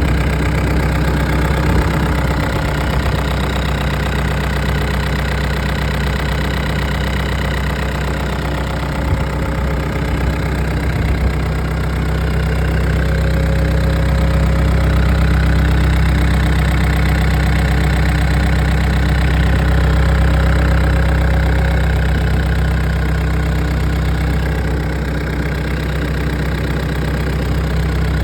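Caterpillar 246 skid steer's diesel engine running steadily, a little louder through the middle stretch, with a few brief knocks about ten seconds in.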